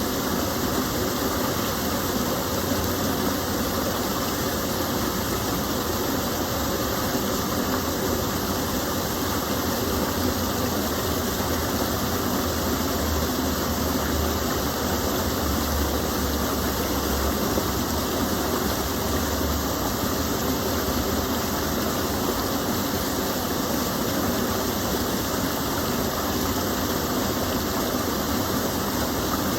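Gentle stream of water spilling over a small fall, a steady even rush with no breaks.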